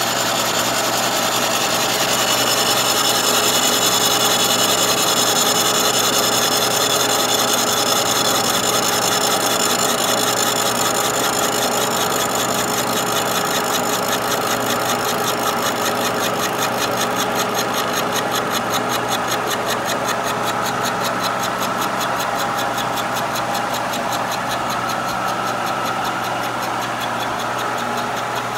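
Kearney & Trecker milling machine running a carbide-insert face mill through a light 10-thousandths pass on a cast iron straight edge at about 246 RPM. It makes a steady running and cutting sound, with a fast even ticking of the inserts that grows clearer from about halfway. The cut runs smooth and free of chatter.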